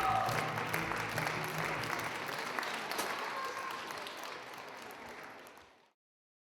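Audience applauding, growing fainter and cutting off abruptly about six seconds in, as the last held notes of the music die away at the start.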